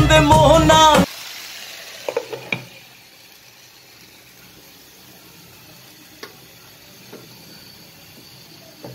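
A Bengali song cuts off about a second in. A few sharp clinks follow about two seconds in as a glass lid is set on the pan. After that, chopped leafy greens sizzle quietly under the lid with a steady low hiss and a few faint ticks.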